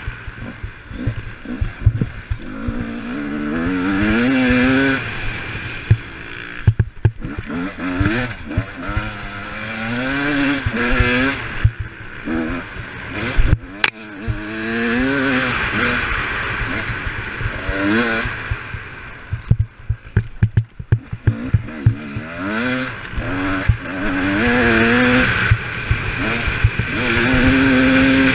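An off-road quad's engine, heard on board, revs up and down over and over as the throttle opens and closes and the rider shifts. Wind rushes across the microphone, and frequent knocks and rattles come from the rough dirt track.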